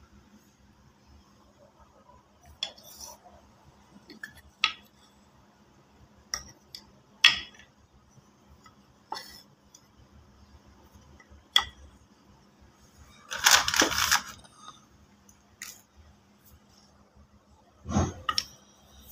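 Hard chalk and baked clay pieces being picked up and handled, clicking and clinking against each other in scattered single knocks. A longer rattling burst comes a little past the middle, and a louder knock near the end.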